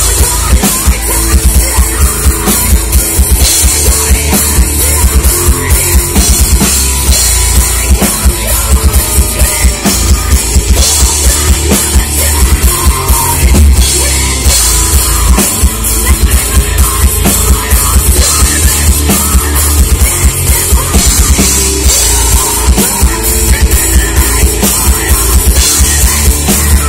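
Heavy metal band playing live and loud: distorted electric guitars over a drum kit with rapid kick drum hits, the full band coming in at once at the start.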